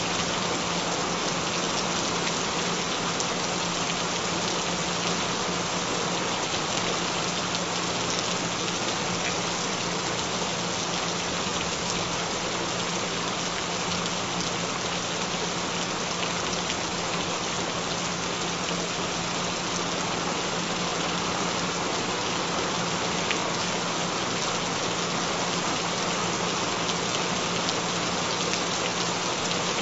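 Steady rain falling on surfaces, an even, unbroken patter, with a low steady tone running underneath.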